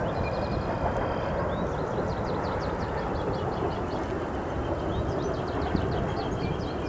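Freight train of open-top coal gondola cars rolling past, a steady rumble and clatter of steel wheels on the rails.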